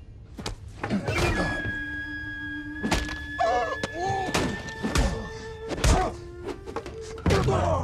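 Fight-scene sound on a train: several heavy thuds and hits from blows and bodies striking, over music with long held tones. A man shouts partway through.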